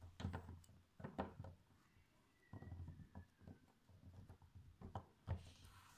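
Handling noises: a scattered series of soft knocks and clicks as a small ball-jointed doll is moved about and set into a little wire-mesh doll chair on a table. A faint falling whine is heard about two seconds in.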